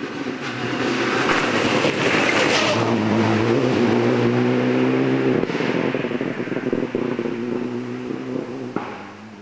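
Rally car engine running hard and accelerating away on the stage. Its note rises, dips briefly about five and a half seconds in, and fades with distance. A single sharp crack comes near the end.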